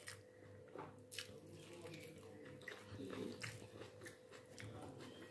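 Faint eating-by-hand sounds: scattered soft clicks and squishes as rice and curry are mixed with the fingers on a ceramic plate and chewed. A faint steady hum runs underneath.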